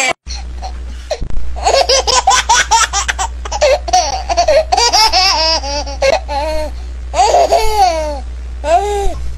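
A baby's squealing, giggling laughter in quick rising-and-falling bursts, over a steady low hum.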